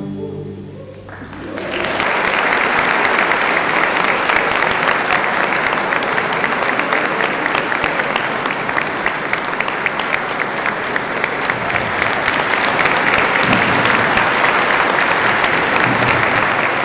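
The last orchestral notes die away, then an audience bursts into applause about a second and a half in, dense and steady.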